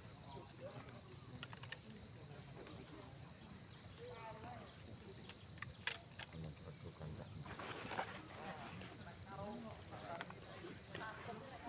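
An insect calling with a high-pitched trill that pulses about six times a second, then runs as a steady buzz after about two seconds, and pulses again near the end.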